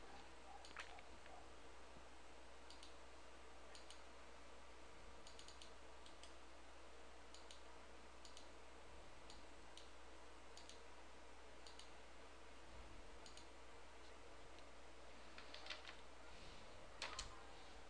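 Near silence with faint clicks about once a second. A short run of slightly louder clicks comes near the end.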